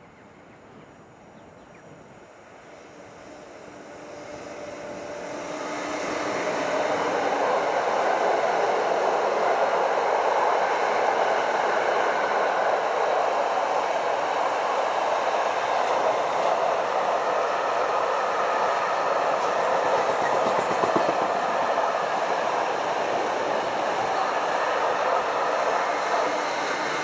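Freight train of empty intermodal flat wagons passing close by. The sound swells over the first six or seven seconds as the locomotive approaches and runs under the bridge, then holds as a steady, loud noise of wagon wheels running on the rails.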